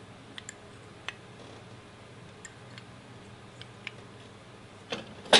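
Sparse light metallic clicks as new Carbone Lorraine brake pads are worked into a motorcycle's front brake caliper by hand, over a faint steady hum. Two louder clacks come near the end.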